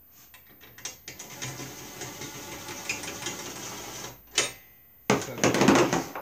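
A power tool fastening hardware on a lawn cart's handle, run in short bursts: a rapid rattling run of about three seconds, a brief burst, then a louder burst of about a second near the end.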